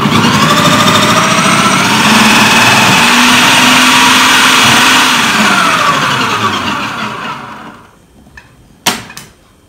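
Idealife IL-222 800 W electric food processor's motor running at speed with a steady whine as its fine grater disc shreds carrots; it starts abruptly, then spins down, falling in pitch and fading from about five seconds in until it stops near eight seconds. A single sharp click follows near the end.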